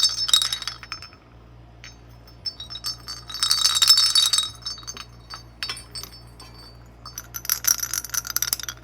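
Small handmade ceramic jingle bells being shaken, ringing and clinking in bright, high bursts: a strong burst about halfway through and a longer one near the end, with scattered single clinks in between.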